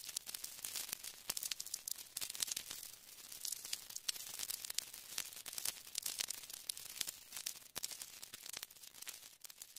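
Surface noise of a blank vinyl record playing: steady hiss with a dense run of irregular crackles and pops.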